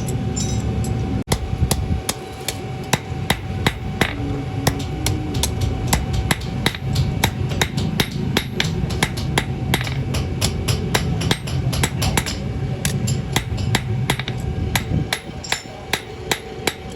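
Blacksmith's hand hammer striking steel on an anvil in quick, even blows, about three a second, forging a sickle blade. A steady low rumble sits underneath and drops away near the end.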